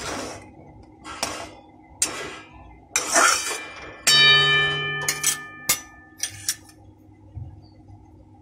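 A steel spatula scraping around a kadhai of boiling milk, sugar and ghee in a few strokes, then about four seconds in a metal clang that rings for about a second and a half, followed by a few light clicks.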